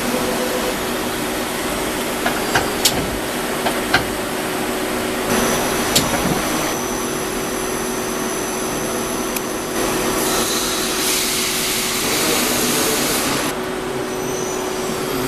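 Ernault-Toyoda HES 32 CNC lathe machining center running under power: a steady mechanical hum with high whines over it and a few sharp clicks in the first several seconds.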